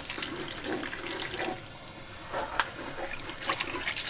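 Coconut milk pouring from a glass jug into a wok of thick simmering pork-blood stew, a steady liquid splash, while a spatula stirs and knocks against the pan a few times.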